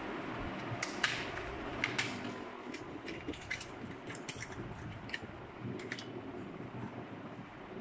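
Packaging of a new SSD being unwrapped and handled by hand: irregular sharp crinkles and clicks, about one or two a second, over a steady low room hum.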